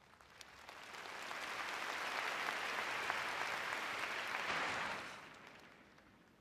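Arena crowd applauding, swelling up over the first second or two, holding steady, then dying away about five seconds in.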